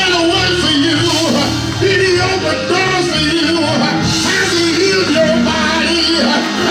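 Church music at the close of a sermon: instruments playing under singing voices, loud and continuous.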